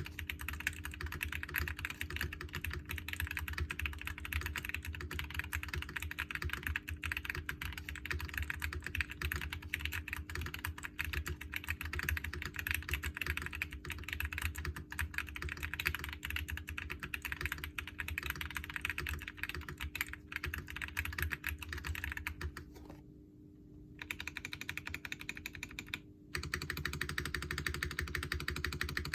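Fast, continuous typing on a Royal Kludge RK98 mechanical keyboard with lubed and filmed Gazzew Boba U4T 62g tactile switches, a brass plate, a tape-modded, foam-dampened PCB and a stacked acrylic gasket-mount case: a dense stream of keystroke clacks. The typing stops for about three seconds about three quarters of the way in, then resumes.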